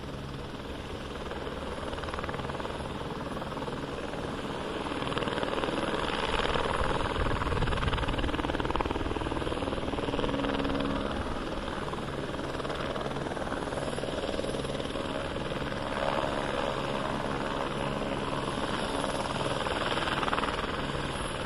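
Police helicopter flying nearby, its rotor and engine noise steady, growing louder about five seconds in and easing after ten seconds, with another swell near the end.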